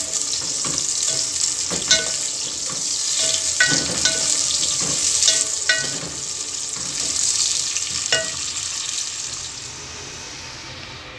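Sliced onions sizzling in hot oil in an aluminium pot, being fried toward golden brown, while a spoon stirs them and scrapes and clinks against the pot every second or two. The sizzling gets quieter near the end.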